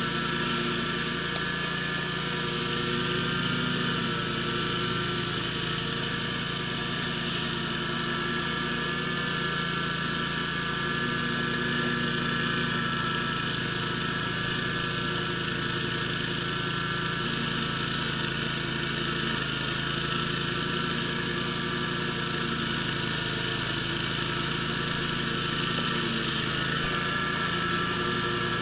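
Scag zero-turn lawn mower's engine running steadily, its pitch wavering slightly.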